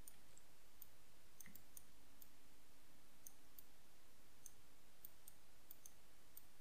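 Faint, irregular computer mouse clicks, about two or three a second, as the mouse works the Shape Builder tool in Illustrator. Under them is a faint steady hiss and hum.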